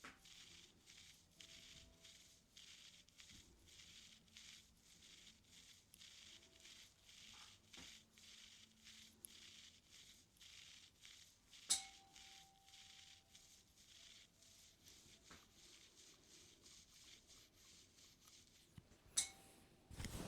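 Ear-cleaning tools scraping and rustling in the ear canal close to the microphone: faint, even scratches about three times a second. Two sharp clicks come about twelve seconds in and again near the end.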